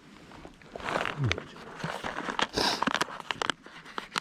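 Rustling and a string of small clicks and knocks as camp coffee gear and packaging are handled, with a short low falling sound about a second in.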